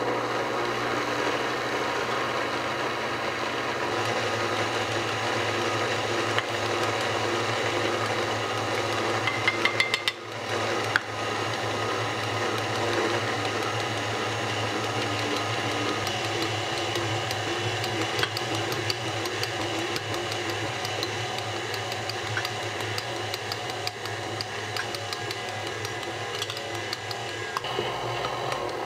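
Electric stand mixer running steadily with its dough hook, kneading yeast bread dough until it is smooth and the gluten has developed. A few brief clicks come about ten seconds in.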